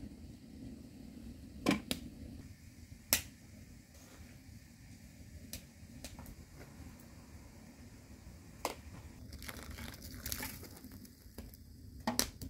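Scattered sharp clinks and taps of metal kitchenware: a fork against a steel pot, then a stainless-steel double teapot and its lid being handled. A brief rustle comes about ten seconds in.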